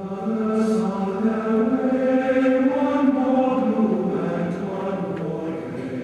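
Several voices chanting long held notes together, in a choir-like sound whose pitch steps up and back down over a few seconds.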